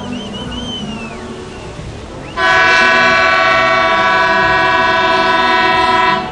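A ship's horn sounds one long, loud blast, starting about two and a half seconds in, holding a steady pitch for nearly four seconds, and cutting off sharply near the end.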